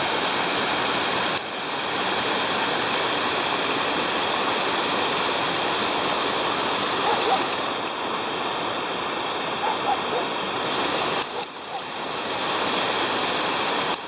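Waterfall's steady rush of water, with a brief dip about three-quarters of the way through.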